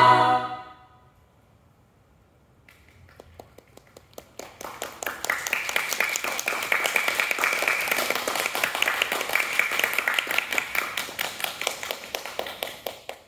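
An a cappella choir's final held chord dies away in the first second. After a short hush, scattered hand claps start and build into steady audience applause, which thins near the end and cuts off.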